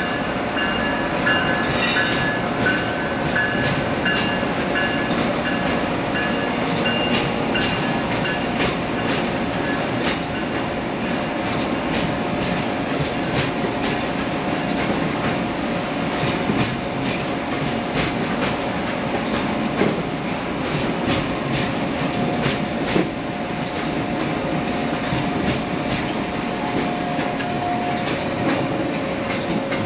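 Amtrak Amfleet passenger coaches rolling past: a steady rumble of steel wheels on rail with rapid clicking over the rail joints. A thin high squeal from the wheels runs through the first several seconds.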